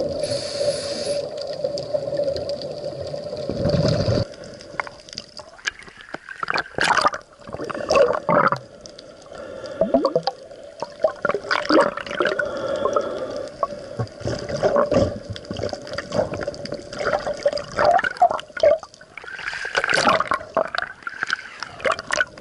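Underwater sound recorded during a scuba ascent: a steady hum with a low rumble that drops away about four seconds in, then irregular bursts of bubbling and gurgling from divers' exhaled regulator bubbles.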